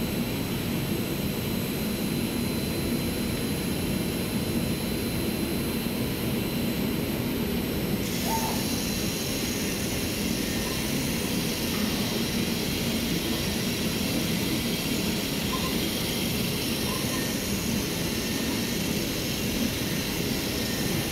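IECHO BK3 digital cutting machine running as it contour-cuts printed fabric: a steady machine noise, whose high hiss shifts about eight seconds in.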